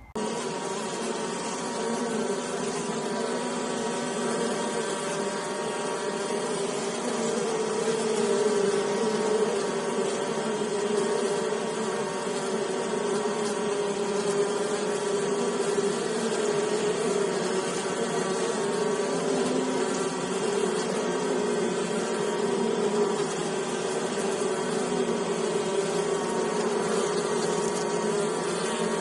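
Honey bees buzzing: a steady, dense hum with several pitches at once, wavering slightly.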